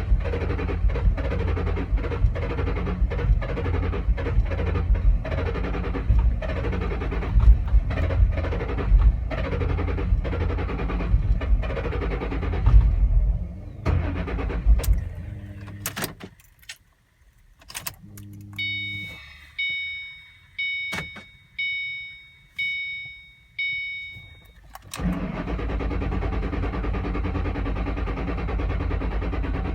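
2007 Mustang Shelby GT-H V8 struggling through a hard start, running rough and uneven for about thirteen seconds before it dies. A few clicks and a short silence follow, then the car's warning chime repeats about five times. About twenty-five seconds in, the engine is running again with a steady idle.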